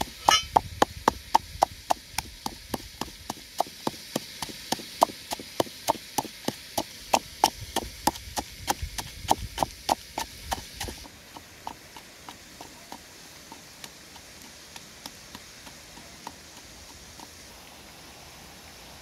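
Wooden pestle pounding chili and garlic in a wooden mortar: a steady run of sharp wooden knocks, about three or four a second. About eleven seconds in, the knocks drop to faint, sparser ones over a steady hiss.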